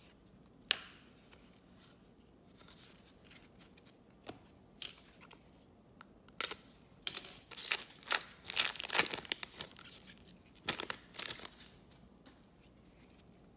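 A foil trading-card pack being slit and torn open, the wrapper crinkling in a cluster of sharp rips in the second half; before that, a few light clicks of cards being handled.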